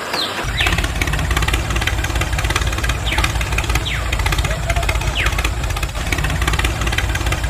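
Tractor engine sound running steadily, starting about half a second in, with short high falling chirps repeating about once a second above it.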